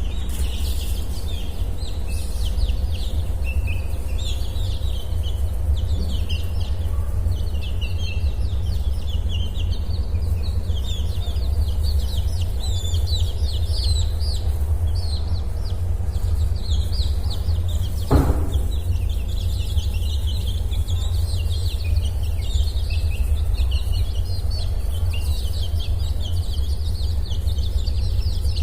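Domestic chicks peeping continually in many short high chirps over a steady low hum. About two-thirds of the way in, one short, lower call, likely from an adult hen, stands out.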